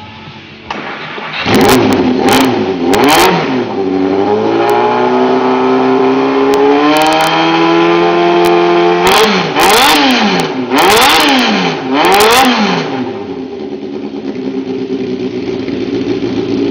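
Honda CBX550F's air-cooled inline-four engine running. It is revved in three quick blips, held at raised revs for several seconds, dropped, blipped four or five more times, then settles back to a steady idle.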